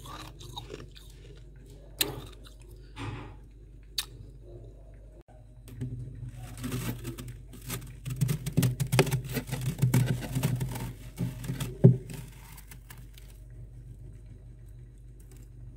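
A hand grabbing and crushing the powdery freezer frost heaped on a frost-covered bowl: a dense run of crunching and crackling lasting several seconds, ending in a sharp crack. A few separate sharp clicks come before it, over a steady low hum.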